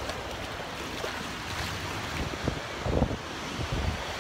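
Ocean surf washing in at the water's edge, a steady hiss of breaking waves, with gusts of wind buffeting the microphone in the second half.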